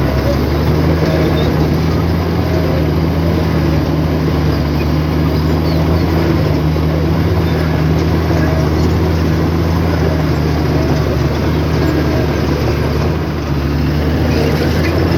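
Heavy diesel engine of an earthmoving machine running steadily under load, a deep, even drone with mechanical clatter over it.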